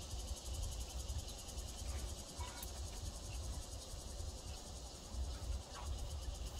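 Insects chirring in a steady, high-pitched chorus with a fast, even pulse, over a low, uneven rumble.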